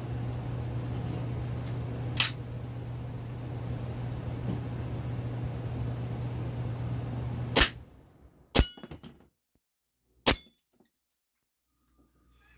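Four sharp shots from a CO2-powered blowback airsoft pistol, the Steyr L9-A2, fired at uneven intervals, the last two with a short ringing tail. A steady low hum underlies the first two shots and stops just after the second.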